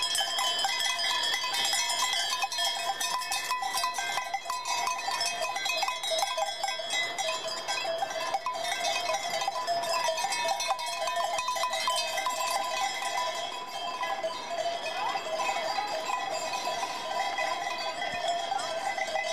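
Several cowbells worn by a herd of Galloway cattle, clanking and jangling irregularly and without a break as the animals walk.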